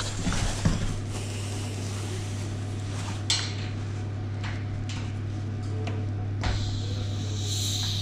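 A radiator valve being turned by hand to isolate the freshly filled radiator: a few light clicks over a steady low hum and hiss. A higher hiss comes in about two-thirds of the way through.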